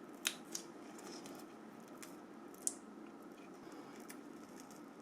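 Faint handling of small phone parts: a few sharp little clicks, two near the start and one more about two and a half seconds in, over steady faint room noise.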